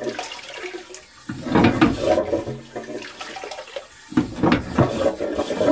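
Old cast-iron bell-type cistern flushing, with water rushing and gurgling down the flush pipe in two irregular surges, about a second in and again about four seconds in.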